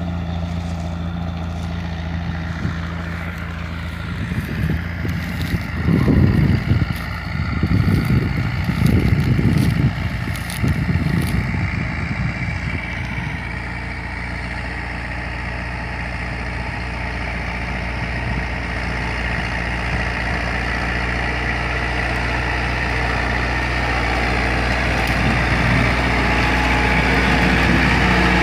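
Diesel tractor engines running steadily under load while ploughing, a constant low drone. Bursts of wind rumble hit the microphone between about 4 and 12 seconds in, and the engine grows louder near the end as the Landini 7550 comes close.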